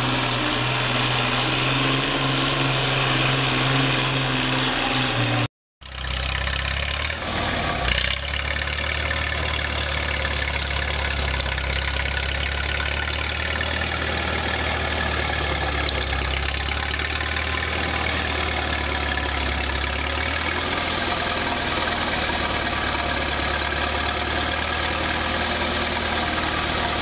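An antique farm tractor's engine running under load as it pulls a sled, cut off suddenly about five seconds in. Then a small crawler dozer's engine runs steadily, with a short surge of loudness soon after it comes in.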